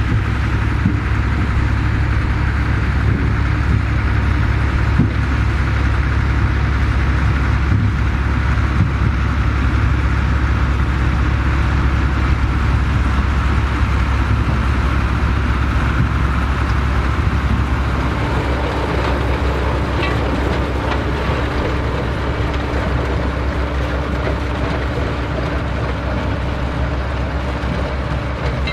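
Tractor engine running steadily. About two-thirds of the way through, a second steady, higher hum joins it.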